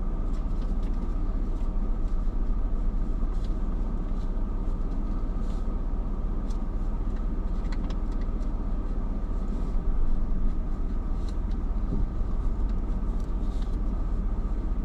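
Car engine running steadily, a low even hum heard from inside the vehicle, with a few faint ticks over it.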